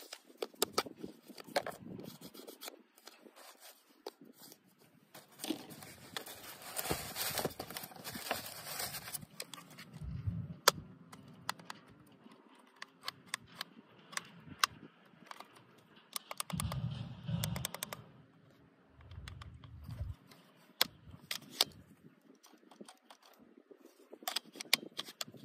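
Handling noises from a toy RC foam jet and its plastic transmitter: scattered clicks and taps, a stretch of scraping and rustling of foam and polystyrene packing, and a few low thuds.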